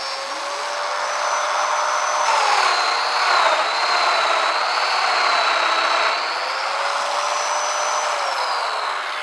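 Domino joiner running with a high motor whine. From about two seconds in to about six, its pitch drops and wavers as the cutter loads up cutting a mortise, then it rises back to full speed.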